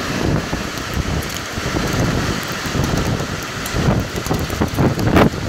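Heavy rain and hail driven by gale-force wind, with gusts buffeting the microphone in low rumbling waves; the strongest gust comes near the end.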